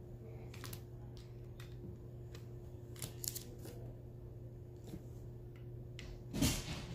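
Diamond-painting drill pen picking up resin drills and pressing them onto the canvas: scattered light clicks and taps, a quick cluster about three seconds in, and a louder knock near the end, over a steady low hum.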